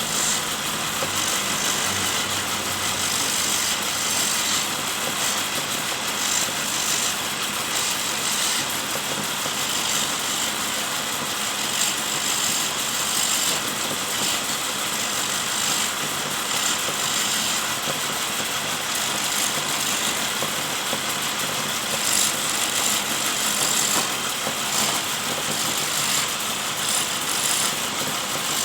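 Homemade wood lathe driven by an electric motor, running steadily with a constant hiss.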